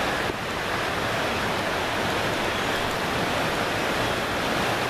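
Steady rushing of a mountain creek, Jake's Creek, flowing just below a footbridge.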